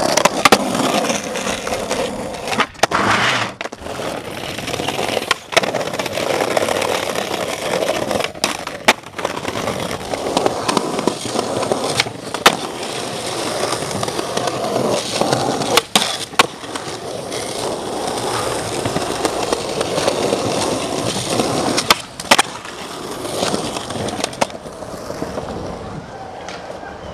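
Skateboard wheels rolling on pavement, broken by a dozen or so sharp clacks of the board popping and landing. The rolling gets quieter near the end.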